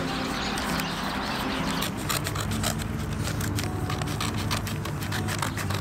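A newspaper sheet being rubbed and scraped along a fold, then torn apart in a run of small crackling rips from about two seconds in.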